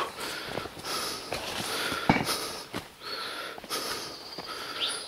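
Hiker breathing hard in repeated heavy breaths while climbing a steep mountain trail, with a few sharp clicks, the strongest about two seconds in. A bird chirps briefly near the end.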